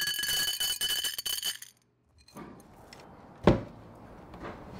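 Metal screws dropped into a terracotta clay saucer: a quick run of clinks with the dish ringing, lasting about a second and a half. After a brief silence, a single knock about three and a half seconds in.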